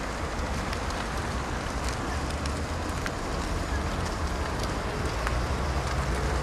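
Steady street noise: wind rumbling on the microphone over cars moving close by, with a small car pulling away past the microphone.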